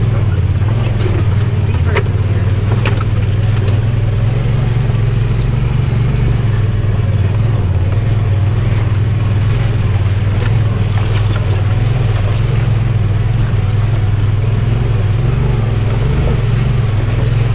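Off-road side-by-side (UTV) engine running steadily at an even speed along a trail, with a few brief knocks and rattles.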